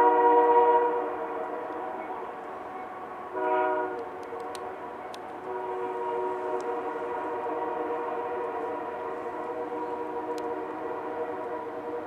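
Diesel freight locomotive's multi-chime air horn sounding a chord: a long blast that stops about a second in, a short blast around three and a half seconds, then another long blast from about five and a half seconds on. A few sharp clicks come between the blasts.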